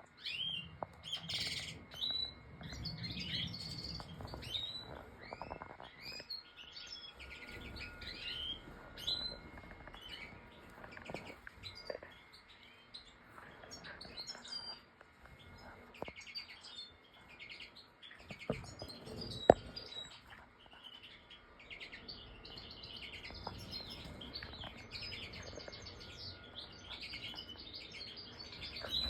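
Major goldfinch (Carduelis carduelis major) singing a long, fast run of varied chirps and short sliding notes, with one sharp click about two thirds of the way through.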